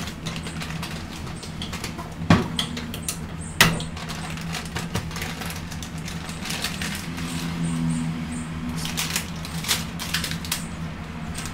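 Crinkling of a plastic flour packet and clattering of kitchen handling at a counter, with two sharp knocks about two and three and a half seconds in and a denser run of rustling and clicks in the second half, over a steady low hum.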